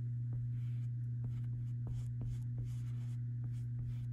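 Paintbrush stroking and dabbing acrylic paint onto canvas: faint, irregular scratchy brushing with a few light ticks, over a steady low hum.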